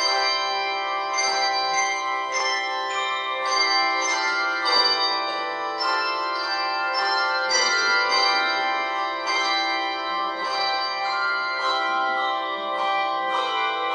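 Handbell choir playing a tune on handbells, with new notes struck about twice a second and the earlier ones ringing on under them.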